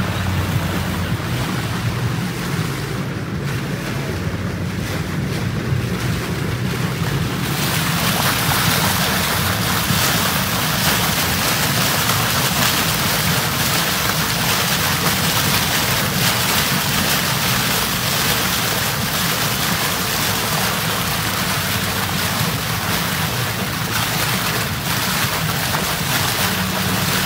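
Motorboat underway: a steady low engine drone under the rush of churning wake water, with wind buffeting the microphone. The hiss of the water grows louder about seven seconds in.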